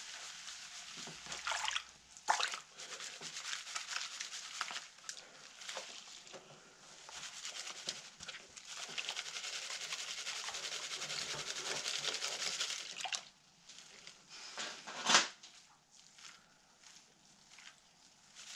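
Water sloshing and swishing in a gold pan as sluice concentrate is panned down, in uneven swirls with short pauses and a couple of sharper knocks.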